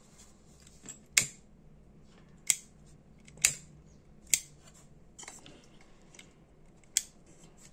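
Ronson Premier butane lighter being struck by its thumb lever after repair: about six sharp clicks a second or so apart, lighting a flame, a sign the gas now comes through.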